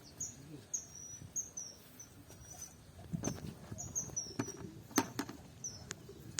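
Small birds chirping in quick, short, high notes again and again, with a few sharp clicks or knocks partway through.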